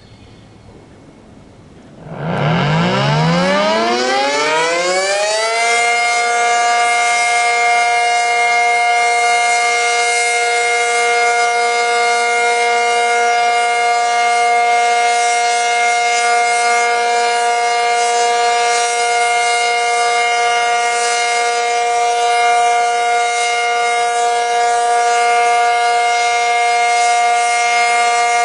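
ACA Cyclone 125 outdoor warning siren winding up about two seconds in, its pitch rising for about three seconds, then holding as one steady, loud tone for the alert signal.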